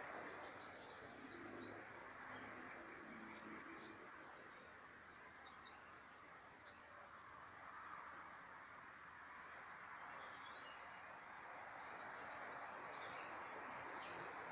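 Faint insect trilling steadily at a high pitch, cricket-like, over a soft background hiss, with a few faint short chirps.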